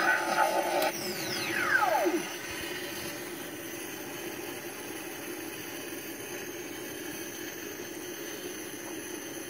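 Ghostbusters proton pack prop's electronic sound effects: a whine that falls steeply in pitch over about a second, ending about two seconds in, then a steady, quieter idle hum.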